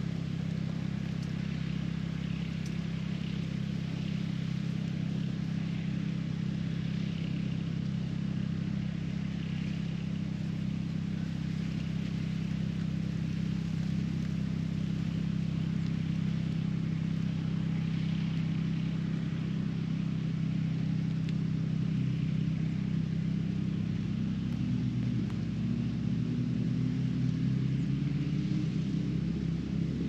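A motor running with a steady low hum, its pitch rising over the last several seconds.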